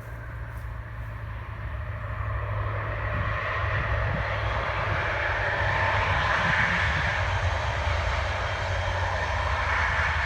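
Class 56 diesel locomotive engine sound running, growing louder over the first few seconds and then holding steady, with a deep hum under a rushing growl.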